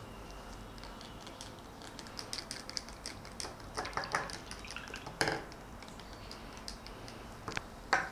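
A plastic stirring stick stirring water in a small plastic cup, ticking and tapping against the sides: faint light clicks, with a few louder taps about five seconds in and near the end.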